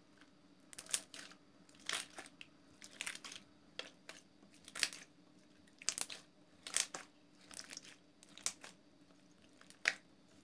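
Clear soap-and-water slime being squeezed and kneaded by hand, giving short, sharp wet pops and crackles about once a second.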